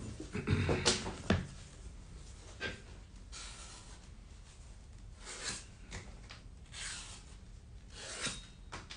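A freshly sharpened head knife slicing through scrap leather in a series of short strokes a second or two apart, a test cut of the new edge.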